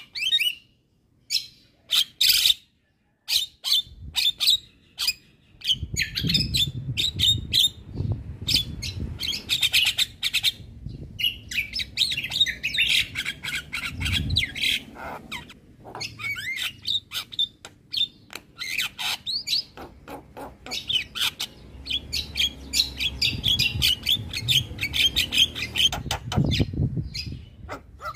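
Javan myna singing at full volume, a fast, unbroken stream of short chattering and whistled notes with brief pauses.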